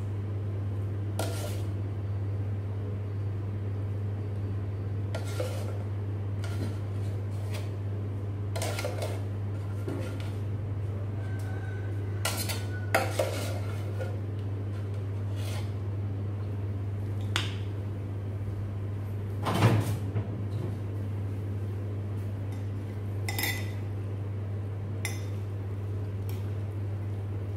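Metal spoon, fork and cooking pot clinking and knocking against a ceramic bowl as noodles are shaken out and mixed. The clinks are scattered every second or two, the loudest about halfway through and about two-thirds in, over a steady low hum.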